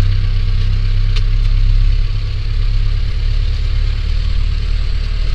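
A vehicle's engine running steadily with a low hum as it drives slowly toward the downed hog.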